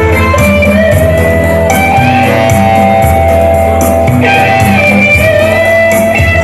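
Live band music, an instrumental passage: guitar and keyboard playing held melody notes over a stepping bass line and a steady beat.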